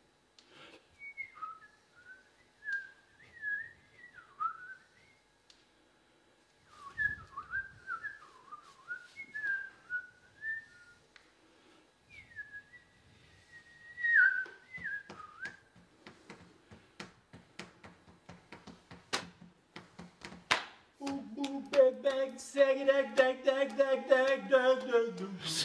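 A person whistling short warbling phrases that slide up and down in pitch, in three runs with pauses between. These are followed by a string of sharp clicks, and then, near the end, a buzzy wavering tone with many overtones.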